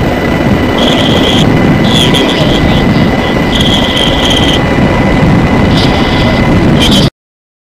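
HH-60G Pave Hawk helicopter in flight, heard from the open cabin door: loud, steady rotor, engine and wind noise with a thin high whine. It cuts off suddenly about seven seconds in.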